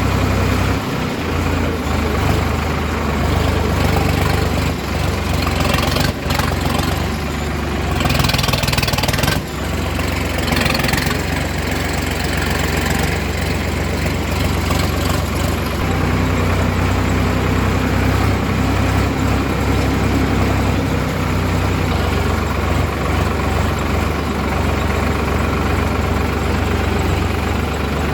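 Heavy diesel work-machine engine running steadily near idle, with a rush of hissing noise twice between about eight and thirteen seconds in.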